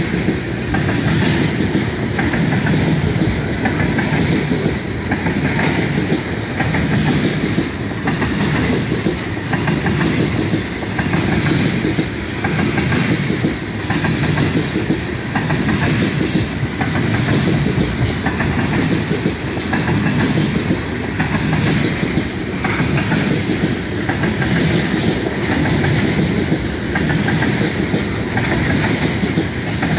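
Tank cars of an oil freight train rolling past close by, their steel wheels clattering over the rail joints in a steady, rhythmic clickety-clack.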